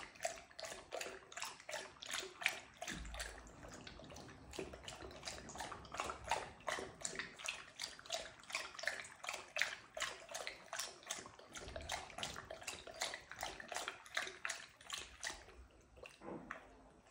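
Labrador retriever lapping water from a metal bowl, a quick, even rhythm of wet laps and splashes. The lapping stops near the end.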